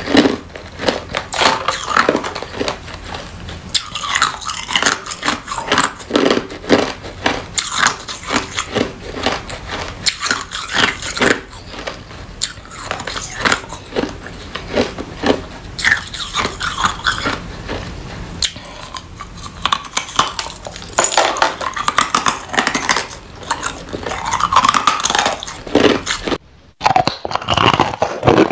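Close-miked biting and chewing of hard clear ice, with dense, irregular crunches and cracks as the chunks break between the teeth. The crunching stops for a moment near the end, then starts again.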